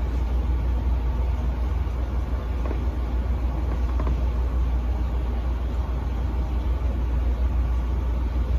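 Steady low rumble with a faint even hiss above it, unchanging, with no distinct knocks or events.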